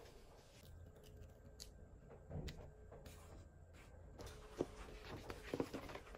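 Paper sticker-book sheets handled and turned: soft paper rustling with a few light taps and clicks, busiest in the second half.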